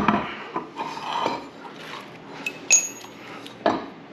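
Metal engine parts and tools clanking as they are handled and set down: a few knocks, then two sharp metallic clinks that ring briefly about two and a half seconds in, and a dull thump near the end.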